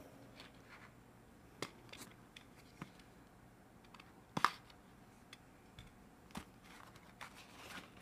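Box cutter slitting the seal of a small cardboard box, with scattered faint scrapes and clicks as the box is handled; the loudest is a sharp click about four and a half seconds in.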